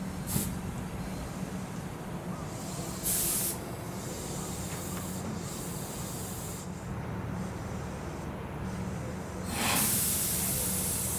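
Compressed air hissing from a train, a short burst about three seconds in and a longer, louder one near the end, over a steady low hum.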